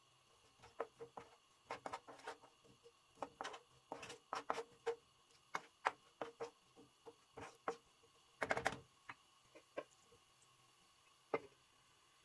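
A spatula scraping and tapping against a non-stick frying pan as chopped onion is stirred, in a run of short irregular clicks and scrapes. A longer metallic clatter comes about two-thirds in as a metal lid is set on the pan. There is no sizzle to be heard.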